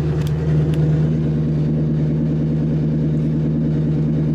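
Straight-piped 4.6-litre V8 of a 1999 Mustang running steadily, heard from inside the car: a loud, low exhaust drone.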